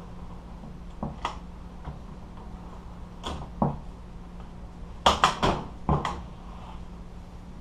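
Scattered metallic clicks and knocks from hand work on a car seat's back latch and frame. There are single strikes about a second in and twice around three and a half seconds, then a quick run of four or five louder knocks about five to six seconds in.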